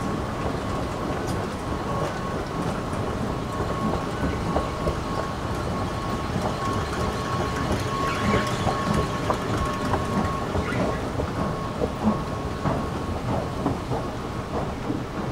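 Escalator running: a steady mechanical rumble with scattered clicks and clacks from the moving steps, and a thin steady whine that fades out about ten seconds in. A sharper knock comes near the end.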